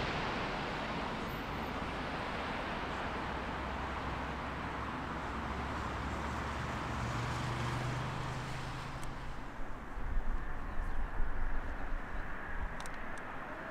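Large jet airliner on final approach, just past overhead: its engine noise fades as it moves away, the higher part dying first. Irregular low rumbles come in the last few seconds.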